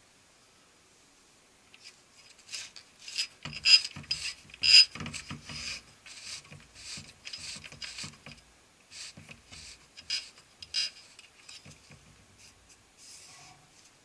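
Ricoh copier developer unit's gears and rollers being turned by hand, an irregular run of clicks and rattles starting about two seconds in and dying away near the end, as the fresh developer is worked through the unit.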